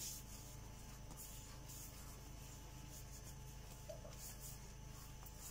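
Soft, faint rubbing and pressing of bread dough being kneaded by hand on a granite countertop, over a low steady hum.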